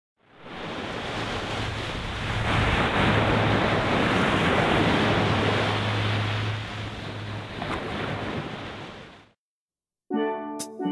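Small waves breaking and washing up on a sandy beach, a steady rush of surf with some wind on the microphone, fading in at the start and fading out about nine seconds in. After a short gap, music with struck pitched notes begins near the end.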